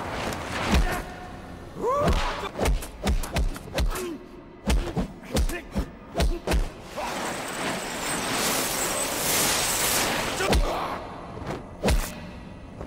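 A rapid series of heavy body thumps against stone with short effort grunts, as a man scrambles and braces his way up the walls of a narrow stone well shaft; a rushing noise swells in the middle, then two more thumps near the end.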